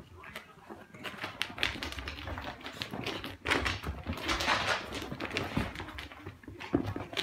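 A cat and a Chihuahua play-fighting: quick scuffling and tapping of paws and claws on carpet, with a louder, denser stretch of scuffling noise about three and a half seconds in.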